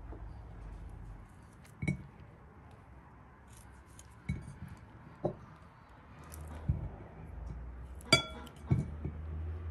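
Knife slicing dried apricots over a ceramic bowl, with a handful of separate sharp clinks of blade and pieces against the bowl. The loudest clink, near the end, rings briefly.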